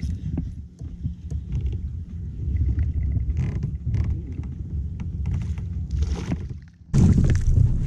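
Fishing reel being cranked and rod handled while a small smallmouth bass is played to the kayak, with clicks and knocks over a low rumble on the camera mic. The fish splashes at the surface about six seconds in. A sudden louder rush of noise comes in about seven seconds in.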